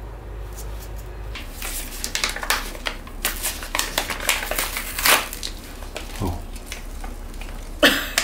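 Paper seed packet crinkling and rustling in gloved hands, in irregular crackly bursts starting about a second and a half in, with one sharp crinkle near the end.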